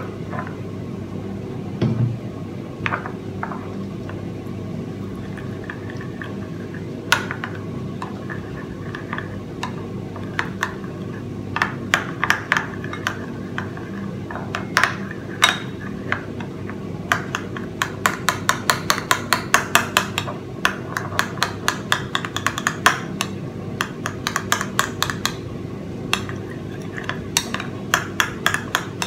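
Metal spoon clinking against the inside of a small ceramic bowl while stirring a thick sauce into hot water: scattered clinks at first, then rapid strokes about three a second through the second half. A steady low hum runs underneath.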